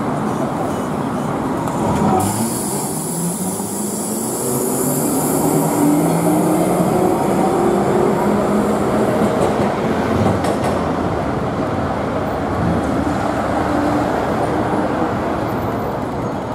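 Vintage W-class Melbourne tram running along street track, a whine from its drive rising slowly in pitch as it picks up speed, over a steady running rumble.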